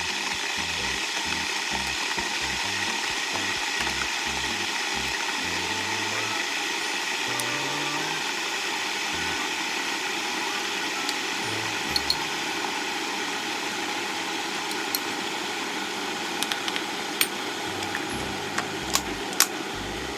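A small electric motor, such as a kitchen appliance's, running steadily with a whirring noise that starts suddenly; a few sharp clicks come near the end.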